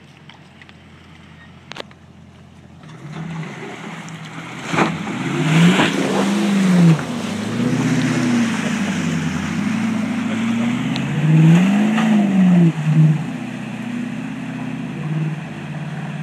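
Land Rover Discovery's engine revving hard as it powers through a muddy water crossing, the revs swinging up and down several times over the noise of tyres churning mud and water. The first few seconds are only a low idle.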